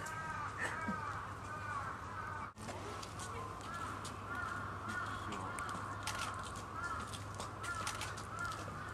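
A series of short animal calls, each rising and falling in pitch, repeating every half second or so at a moderate level.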